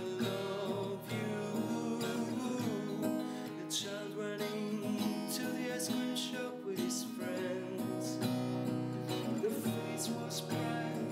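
Music led by strummed acoustic guitar, playing steadily.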